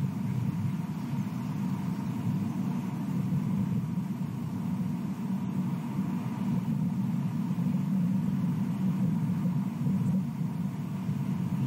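A steady low rumble throughout, with a faint thin steady tone above it; no distinct calls or sharp sounds stand out.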